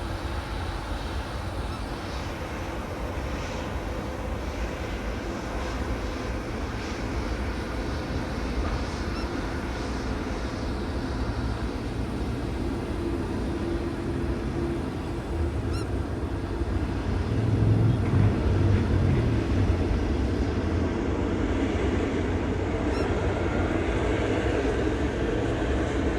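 Jet airliner engines at an airport, a steady rumbling roar that swells to its loudest about two-thirds of the way through and then eases slightly.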